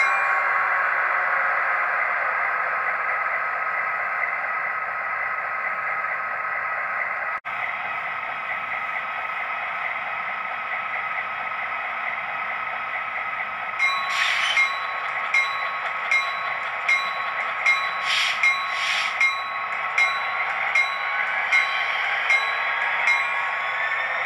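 HO scale model train running on its track: a steady whine from the locomotive's small electric motor and gearing, with the sound dropping out for an instant about seven seconds in. In the second half the wheels click over the rail joints, roughly once or twice a second.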